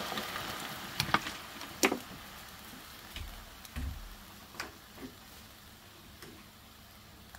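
Cubed eggplant sizzling in oil in a frying pan, dying down gradually, with a few sharp ticks and clicks over it, the loudest in the first two seconds.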